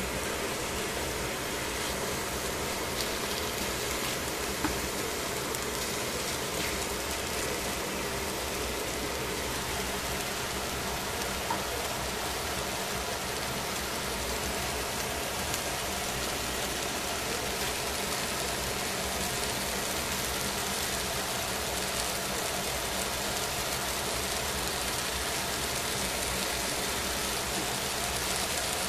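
Cabbage, carrot and shimeji mushrooms sizzling steadily in a stainless steel pan, with a few small pops.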